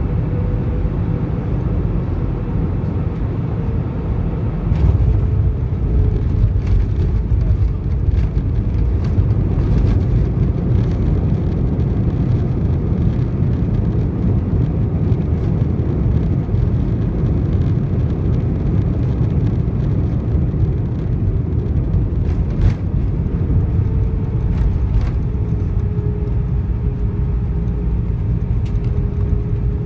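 Cabin noise inside an Airbus A320 rolling on the runway after landing: a steady low rumble of engines and wheels, louder from about five seconds in, with scattered rattles and knocks. A faint steady whine sits over it at the start and again near the end.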